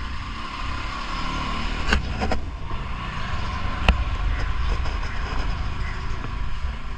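Motor vehicle running: a steady engine and road rumble, with a few short clicks.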